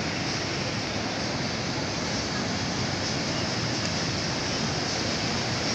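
Ocean surf: waves breaking and washing over the shallow beach in a steady rush.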